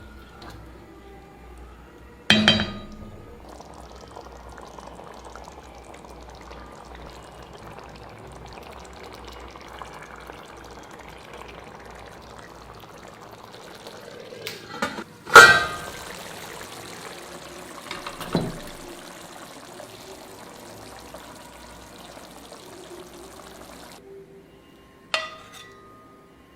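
Liquid being poured into a cooking pan, with a steady hiss from the pan and a few sharp clanks of metal utensils, the loudest about fifteen seconds in. The hiss stops abruptly near the end.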